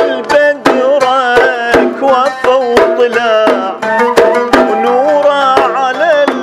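Traditional Iraqi ensemble music: a reed ney flute plays a wavering, ornamented melody over a plucked oud, driven by quick, sharp strikes on small double-headed hand drums (mirwas).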